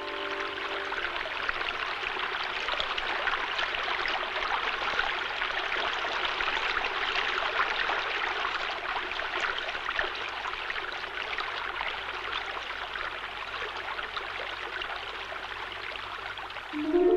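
River water flowing, a steady rushing stream.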